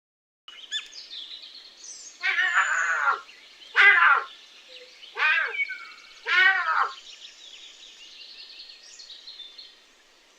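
Bobcat calling: four loud, harsh calls, each half a second to a second long, over faint bird chirping.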